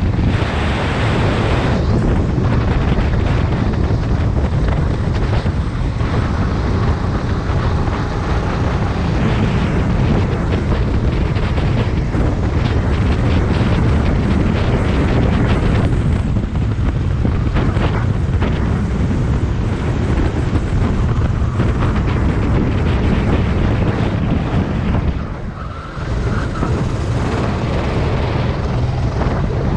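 Go-kart engine running at racing speed under the onboard camera, with wind buffeting the microphone. The sound dips briefly about four seconds before the end, then picks up again.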